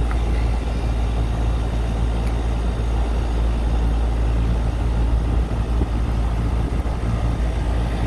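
3-ton ICP commercial package air-conditioning unit running, its condenser fan and compressor making a steady low drone while R22 refrigerant is being charged into it.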